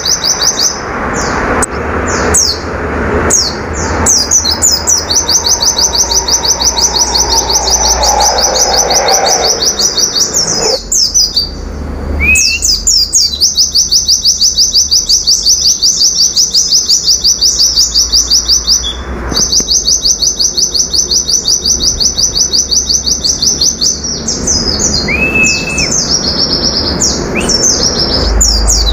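Caged white-eye (pleci) singing its fast 'nembak' song: long runs of rapid, high repeated notes, broken by short sweeping, chattering phrases.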